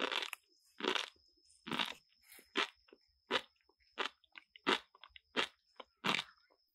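Baby monkey chewing crunchy fruit: a regular run of crisp crunches, about one every 0.8 seconds, the later ones shorter.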